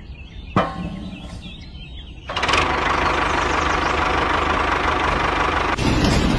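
A sharp click, then about two seconds in a small motor starts suddenly and keeps running steadily.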